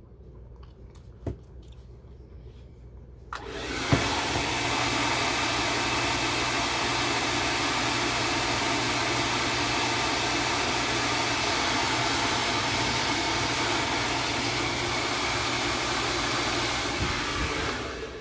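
Handheld hair dryer switched on about three seconds in and blowing steadily, then switched off near the end. It is heating a clock's power cord and plug so the insulation softens and settles into place. A single click comes shortly before it starts.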